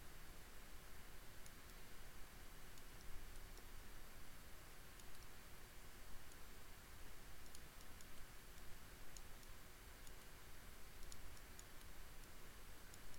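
Faint, irregular clicks of a computer mouse over a steady low hiss, as vertices are picked and a menu is opened.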